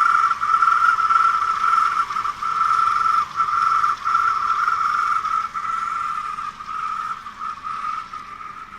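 Squeal from a Suzuki Grand Vitara's accessory drive belt pulleys with the engine running: a steady high-pitched squeal with brief breaks, fading near the end. The owner takes it for a faulty belt tensioner roller or another drive-belt pulley.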